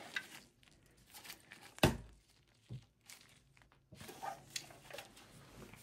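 Handling noise as a desktop computer power supply unit is turned over in gloved hands: faint rustling and small clicks from the unit and its cables, with one sharp knock a little under two seconds in.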